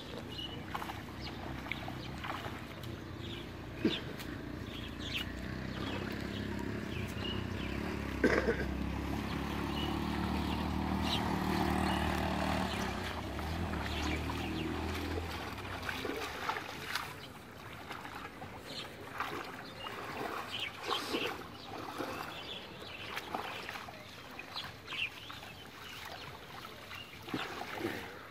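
A motor's steady low hum builds and then stops about halfway through. Short splashes and sloshes of shallow water follow as someone wades and pulls a fishing net through the mud.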